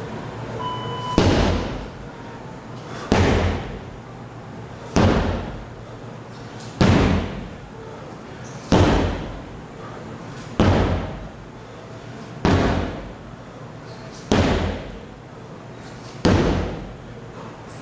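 Sledgehammer strikes, one about every two seconds, nine in all, each a heavy thud that fades out over about a second.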